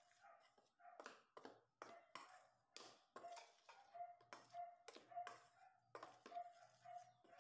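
Metal spoon stirring dry flour and spice mix in a stainless steel bowl: faint scrapes and taps against the bowl, about three a second, with a faint steady tone coming and going between them.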